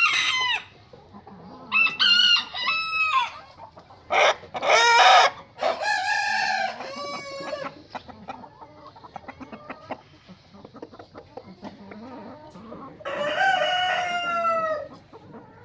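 A rooster crowing several times, ending with one long crow near the end that falls slightly in pitch. Shorter clucking calls come in between.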